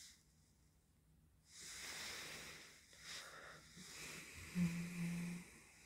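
Faint breathing and soft rustling close to a phone microphone, with a short low hum about four and a half seconds in.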